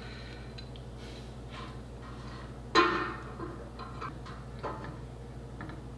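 Headphone hanger clamp being fitted onto the edge of a desk: one sharp knock a little before halfway, with a few lighter clicks and taps around it, over a faint low hum.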